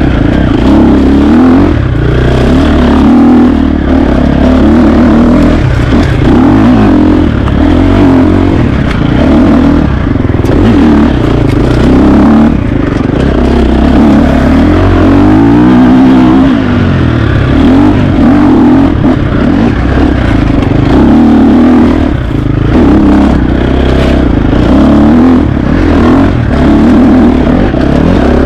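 KTM 350 XC-F four-stroke single-cylinder dirt bike engine, loud and under load, its pitch rising and falling again and again as the rider works the throttle and gears on the trail.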